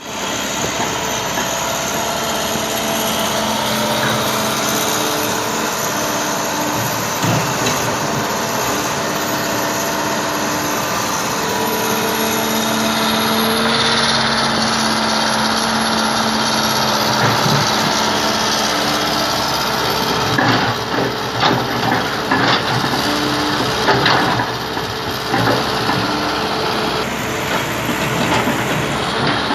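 A heavy construction machine's diesel engine running, its pitch stepping up and down as it works. A run of sharp knocks and clanks comes in the second half.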